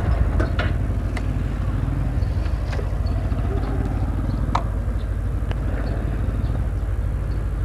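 Bajaj Pulsar NS125's single-cylinder engine idling steadily, with a few faint clicks over it.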